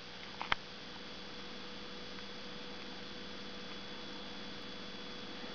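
A steady low hum with a faint high-pitched whine over it, and a single click about half a second in.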